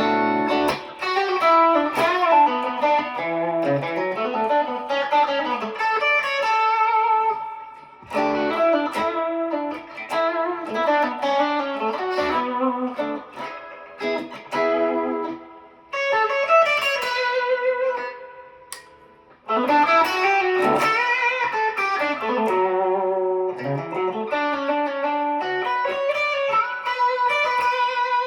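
PRS Special Semi-Hollow electric guitar played through an amplifier: single-note melodic lead phrases with sustained notes, string bends and vibrato. It plays in several phrases with short pauses about 8, 16 and 19 seconds in.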